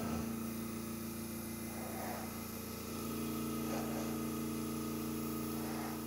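Small airbrush compressor running with a steady hum, and the hiss of air from a Paasche single-action airbrush spraying thinned acrylic paint; the level rises a little about three seconds in.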